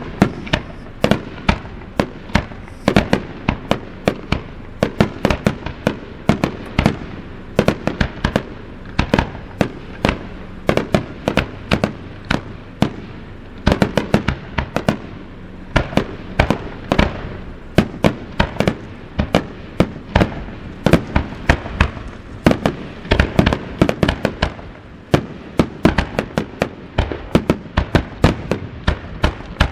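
Starmine fireworks finale: a rapid-fire barrage of aerial shells bursting in quick succession, several sharp bangs a second in dense clusters.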